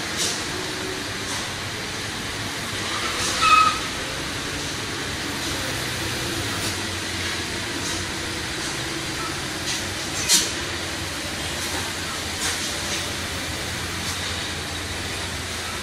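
Heavy trucks and other vehicles running slowly through a wet hairpin bend: a steady engine drone under wet-tyre hiss, broken by a few short sharp hisses, the loudest about three and a half seconds in and another about ten seconds in.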